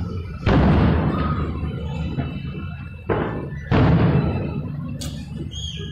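Aerial fireworks shells bursting as sudden booms, about half a second, three seconds and nearly four seconds in, each rumbling and echoing away, with a thinner, sharper burst about five seconds in.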